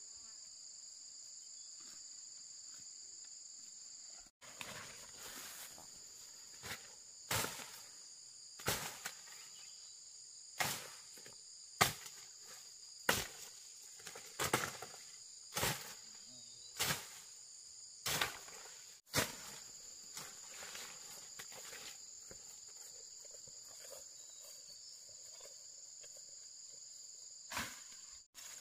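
Steady high chirring of crickets. Over it, about a second in from the first cut, comes a run of a dozen or so sharp knocks, roughly one every second and a quarter, stopping about two-thirds of the way through, with one more knock near the end.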